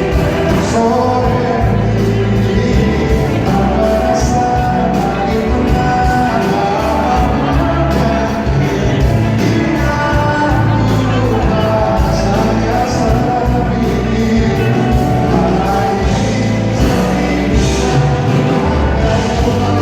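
Live pop ballad performance: a band playing with a male lead singer, heard through the reverberant hall of a concert, with the crowd singing along.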